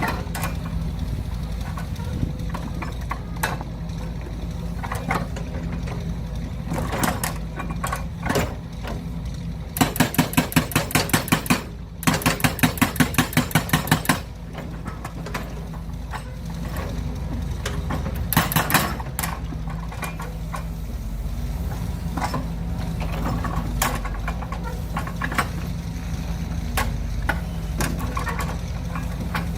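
Excavator engine running steadily with a low hum. Around the middle come two runs of loud, rapid clicking, about six a second and each lasting a couple of seconds.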